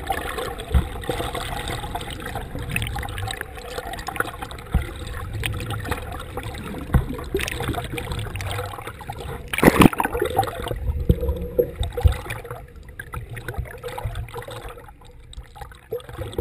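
Water sloshing and gurgling around a camera held just under the surface, with scattered bumps and knocks. A louder rush of water comes about ten seconds in, and the sound grows quieter over the last few seconds.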